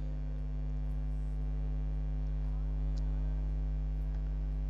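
Steady low electrical hum with a buzzy stack of overtones, unchanging throughout: mains-type hum in the recording.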